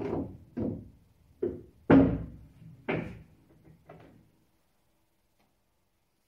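Pool balls knocking on a Diamond pool table after a shot: about half a dozen separate knocks and thuds from the cue ball coming off the cushions and the pocketed ball, the loudest about two seconds in, dying away after about four seconds.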